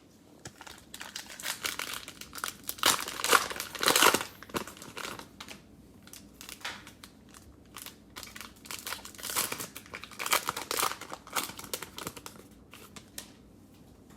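Cellophane wrappers of trading-card packs being torn open and crinkled, in two spells of dense crackling with a short lull between.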